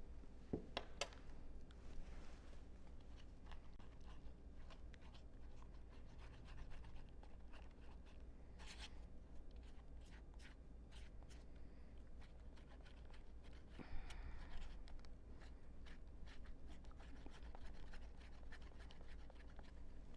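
Faint stirring of yeast and warm water: a utensil scraping and clicking against a glass jar and then a foam cup, in scattered light clicks with a longer scrape about nine seconds in and another around fourteen seconds.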